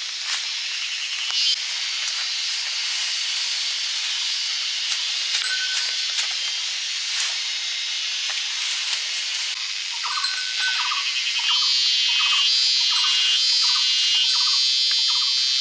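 Outdoor ambience of insects trilling and buzzing over a steady high hiss with scattered small clicks; the trill grows louder near the end. From about ten seconds in, a short call repeats roughly every half second.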